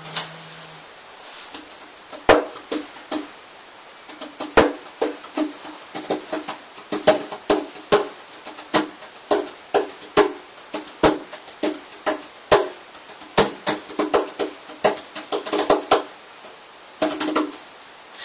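Nylon-string classical guitar played in short, sharp, percussive strokes, in a fast uneven rhythm.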